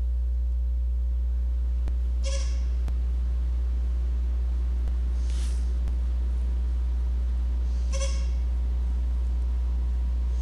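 Steady low electrical hum with faint steady tones above it. Three short soft hissy sounds come about two, five and eight seconds in.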